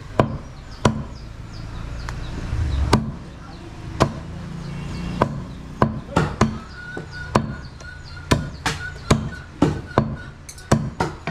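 Meat cleaver chopping goat meat on a wooden chopping block: sharp separate whacks, spaced out at first, then coming quicker from about halfway through.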